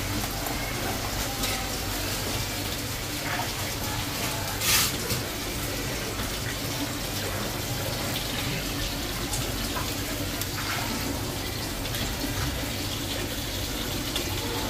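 Steady rush of running water with a low hum beneath it. A single sharp knock about five seconds in is the loudest moment, and a few faint clicks come and go.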